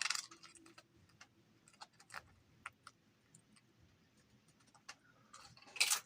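Scattered light clicks and taps of food and utensils being handled on a plate, with a louder brief scratchy noise near the end.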